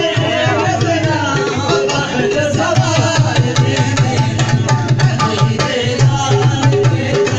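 Qawwali music: a fast, driving hand-drum rhythm with melody and singing over it.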